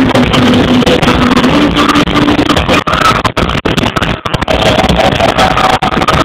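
Hard rock band playing live through a PA: held guitar or vocal notes over drums and a dense wall of sound. It is loud and overloaded, with brief dropouts, as recorded on a phone near the speakers.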